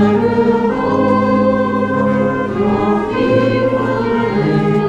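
Congregation singing a slow hymn with a town band accompanying, voices and instruments holding long notes together.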